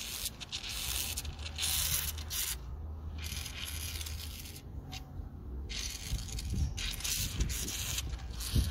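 Coolant fizzing and hissing as it foams out around the cap of a Cummins ISX15's high-pressure coolant tank, over the low steady hum of the running engine. Combustion gas is being forced into the cooling system, the sign of a broken cylinder head gasket.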